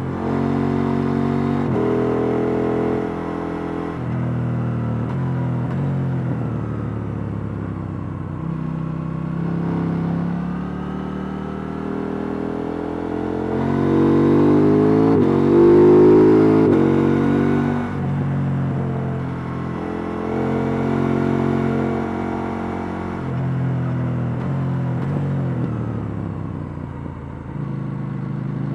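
KTM 890 Duke R's parallel-twin engine through its stock exhaust, heard on board while riding: the revs rise and fall through the gears, loudest as it pulls hard about halfway through.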